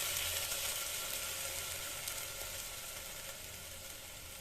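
Ground mustard-and-vinegar paste sizzling in a hot pan, the hiss dying down steadily over the few seconds.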